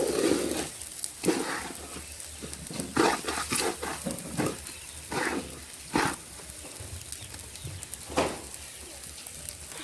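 Rice frying in a pot and being stirred with a spoon: irregular scraping strokes against the pot about once a second, over a sizzle.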